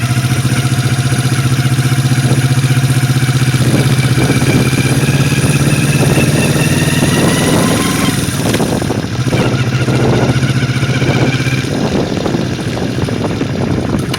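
Yamaha XS400 parallel-twin engine running with a strange noise from the engine. The revs rise and are held from about four seconds in, drop back a little after eight seconds, then rise again before settling back to idle near the end.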